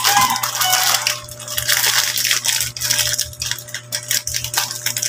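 Plastic snack wrapper crinkling and crackling as it is unwrapped by hand, in quick irregular bursts of clicks.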